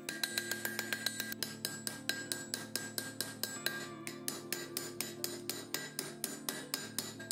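Blacksmith's hand hammer striking red-hot iron on an anvil in quick, even blows, about four a second, each with a metallic ring.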